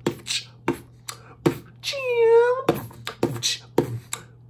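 A man beatboxing into an earphone microphone held at his lips: a string of sharp mouth-percussion hits, with a short sung note about two seconds in that dips and rises in pitch.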